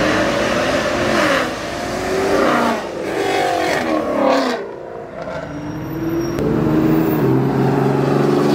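Car engines revving and accelerating, their pitch climbing and falling several times as the cars pull away. After a brief lull about five seconds in, a lower, steadier engine note takes over.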